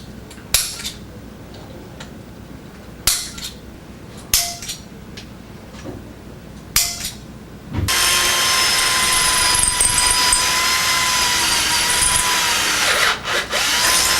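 A few sharp knocks, then an electric drill running steadily for about six seconds, drilling the marked holes in the stroller strut; near the end it stops and gives a couple of short bursts.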